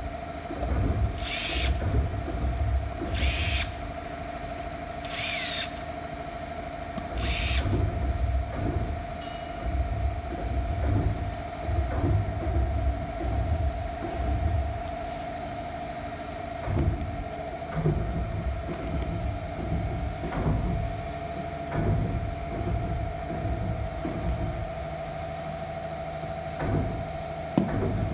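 Cordless drill-driver whirring in four short bursts in the first several seconds, driving screws into the chrome barber-chair base. Then knocks and clatter of metal chair parts being handled and fitted, over a steady hum.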